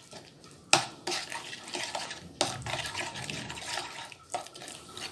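A metal spoon stirring a thick curd (yogurt) and spice-powder marinade in a bowl, with wet scraping and mixing sounds and three sharp knocks.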